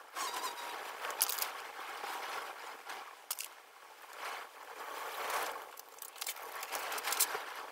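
Dry-erase marker scratching and squeaking across a small whiteboard in short strokes, with the board wiped clean midway.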